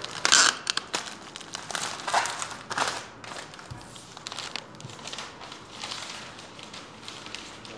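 Bouquet wrapping paper crinkling and crackling as it is folded and pressed around the flowers, in irregular bursts, the loudest just after the start.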